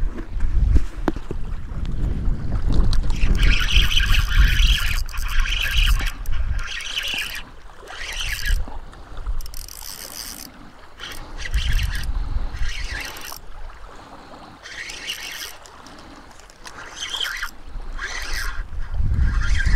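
Gusty wind buffeting the microphone, rumbling in surges that come and go, with short hissing washes of small waves at the water's edge between gusts.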